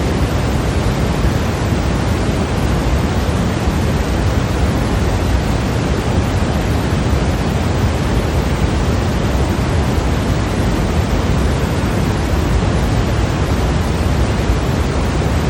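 Steady white noise from a sleep-sound track: an even, unbroken hiss, heavier in the bass and thinner toward the treble, with no changes.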